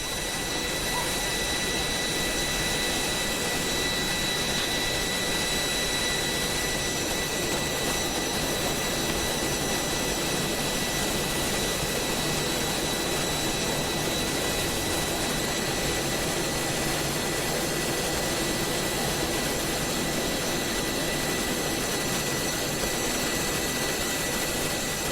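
Steady cockpit noise of a parked Airbus A310 during pre-flight: even rushing air with a constant high whine.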